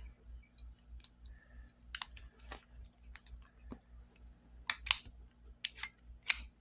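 Scattered sharp metal clicks and clacks from handling a freshly cleaned and reassembled Raven Arms P25 pistol, its small parts and action being worked, about eight clicks at irregular intervals, several bunched a little after the midpoint.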